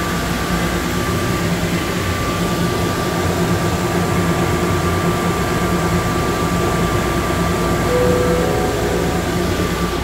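Atlanta airport Plane Train people mover running through a tunnel, heard from inside the car: a steady rumble with a constant high electric whine. A lower tone joins near the end as the train comes into the station.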